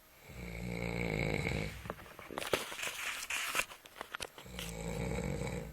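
Snoring: a low buzzing snore breath about a second and a half long, then a noisy rush of breath with a few clicks, then a second snore near the end.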